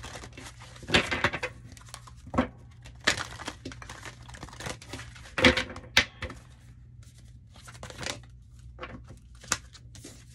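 Tarot cards being shuffled and handled: irregular papery swishes and snaps of card stock, with a sharp click about six seconds in.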